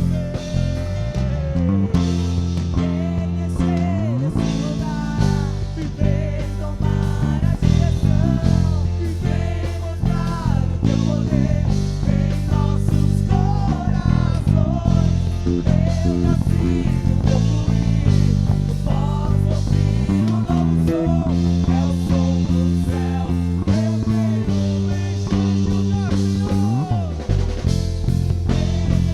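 A worship band plays an instrumental passage, with electric bass and electric guitar carrying a bending lead melody. The bass plays sustained low notes, sliding up and down near the start and again near the end.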